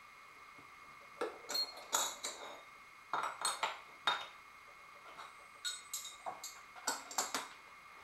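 Steel wrenches and tooling clinking and tapping against the metal of a Taig benchtop lathe around its spindle collet, in irregular clusters of sharp clicks that begin about a second in.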